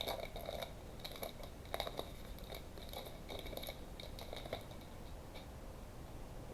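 A foil trading-card pack and its cards being handled: faint crinkling with many small clicks and scratches that thin out after about five seconds.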